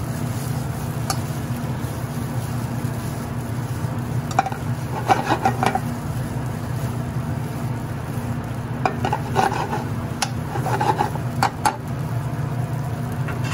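Penne in creamy Alfredo sauce being tossed and stirred in a hot nonstick frying pan: a soft sizzle with scraping and clatter of the pan, coming in two bunches about five seconds and ten seconds in, over a steady low hum.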